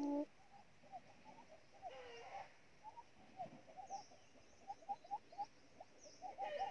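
Faint animal calls: many short, quick chirping notes scattered irregularly, with a few thin, higher descending whistles now and then.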